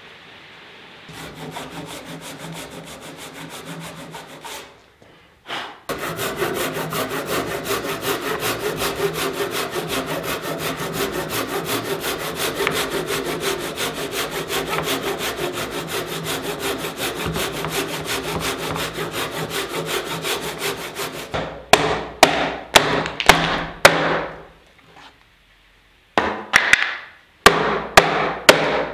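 Large Japanese pull saw cutting across a timber post, lighter strokes at first, then quick, even rasping strokes for about fifteen seconds as the tenon kerfs are sawn. Near the end, a run of sharp separate chops from a hatchet knocking out the waste between the kerfs.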